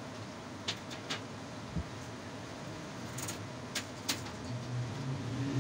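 A few light, sharp metallic clicks of steel wires being handled and laid against a steel plate, over a steady low background hum that swells near the end.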